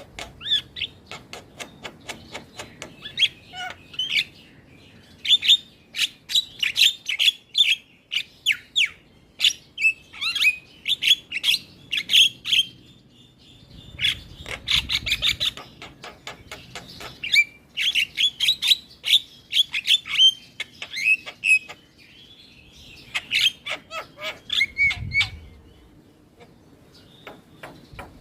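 Javan myna (jalak kebo) singing in bouts of rapid, harsh clicking chatter mixed with squeaky, whistled notes, with short pauses between bouts.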